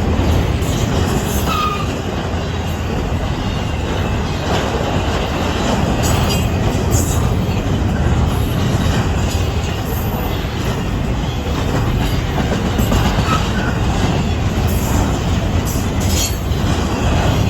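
Intermodal freight train's well cars rolling past: a steady rumble of steel wheels on rail, with scattered clicks and a couple of short wheel squeals.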